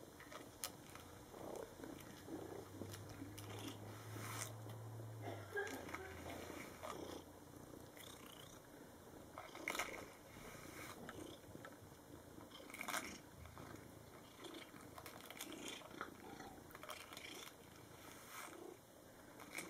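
Cat purring steadily while rubbing its face and head against a handheld wire slicker brush, with irregular scratchy strokes as the bristles rake through its fur.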